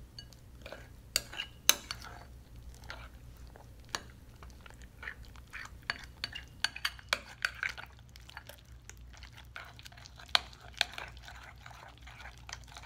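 Metal tablespoon stirring slime in a bowl, with irregular clinks and scrapes of the spoon against the bowl. Liquid starch is being mixed into the glue to activate the slime.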